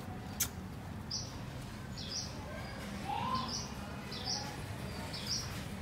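A small bird calling over and over, a short high chirp about once a second, with one sharp tap just after the start.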